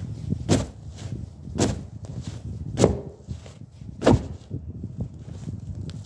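Leather shoe stomping on a spring-filled upholstered cushion, four sharp crunches a little over a second apart, as the springs inside are crushed and busted.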